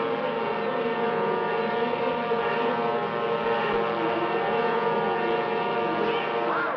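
Cartoon sound effect of a plane in a power dive: a loud, steady whining drone made of many held tones, its pitch unchanging. Near the end a voice screams on top, rising and falling in pitch.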